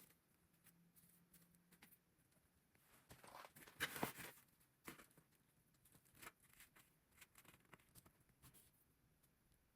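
Near silence, with a short cluster of faint rustling clicks about four seconds in and two single soft clicks after it.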